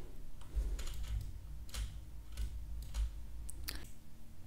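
Faint, scattered clicks of a computer mouse: middle-button presses and scroll-wheel turns as the 3D view is orbited and zoomed, a handful spread over a few seconds.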